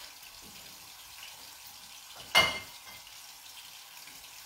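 Turkey rolls frying in a pan with a steady faint sizzle. A single sharp clink with a brief metallic ring cuts in about two seconds in.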